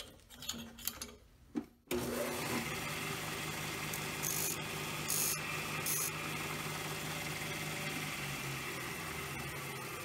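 Bench disc sander switched on about two seconds in, its motor running with a steady hum. A 7 mm brass pen tube held in a sanding jig is touched to the spinning abrasive disc three times in short scrapes to bring its end to length. The hum drops a little in pitch near the end.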